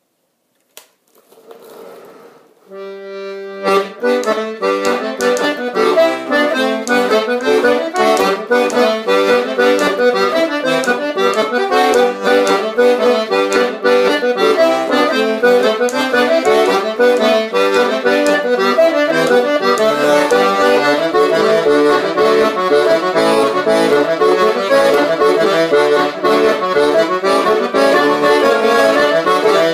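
Button melodeon playing a brisk English folk dance tune, melody over chords and bass. After a faint click, one held chord sounds about three seconds in, and then the tune starts.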